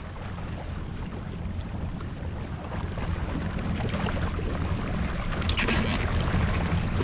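Jet ski engine running with water rushing and wind on the microphone, getting gradually louder, with a brief brighter hiss about five and a half seconds in.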